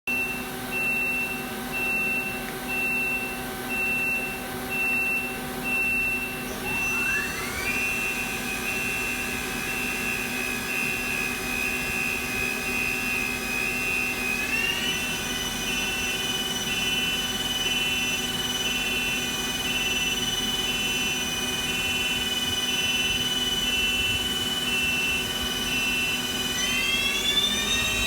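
Okuma & Howa 2SP-3-HG CNC lathe running, with a beep-like tone pulsing about once a second for the first few seconds. About seven seconds in, a motor whine rises in pitch as the machine speeds up, then holds steady. It steps up higher around fifteen seconds and begins climbing again near the end.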